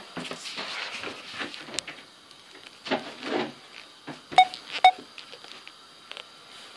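Soft rustling and brushing as a cat moves right up against the phone, with two short, bright clinks about four and a half seconds in, half a second apart.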